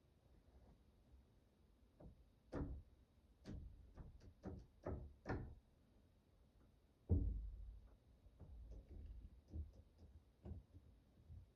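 A run of short knocks and clicks, then a louder thump about seven seconds in, followed by a few fainter clicks.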